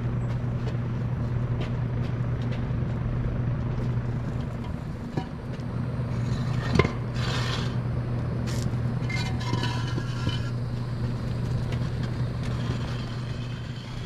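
A tractor tire being handled on concrete and cinder blocks: a sharp knock about seven seconds in, then scraping and rubbing for a few seconds, over a steady low mechanical hum.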